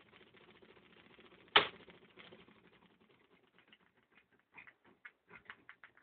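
Homemade reed-switch magnet motor with supercoil and capacitor running with a rapid, steady ticking. A single loud knock comes about one and a half seconds in, after which the ticks come slower and further apart and die away as the rotor coasts to a stop.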